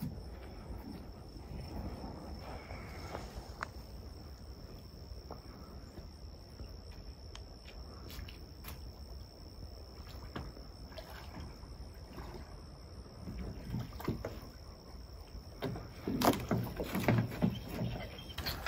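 Insects buzzing steadily at one high pitch over a low outdoor rumble, with a cluster of knocks and clatter near the end.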